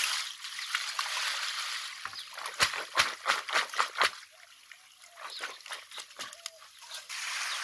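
Water poured from a bucket splashing over a plastic crate of live stinging catfish, then a run of sharp wet slaps and knocks as the fish are handled in the crate. The splashing starts again near the end.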